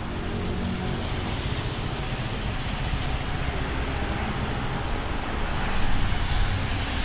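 Road traffic rumbling steadily along a wet town street in the rain, with a hiss over a low rumble. The traffic swells louder about six seconds in.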